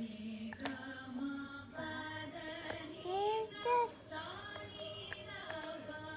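A small child with a cold and cough singing a sa re ga ma sargam phrase over a steady drone, her voice rising in two loud notes a little past halfway.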